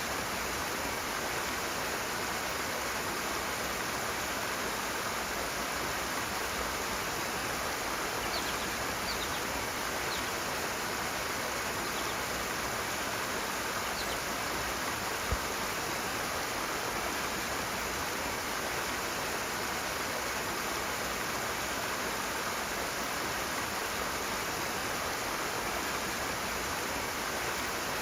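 Rushing water flowing steadily and evenly, with one brief low bump about halfway through.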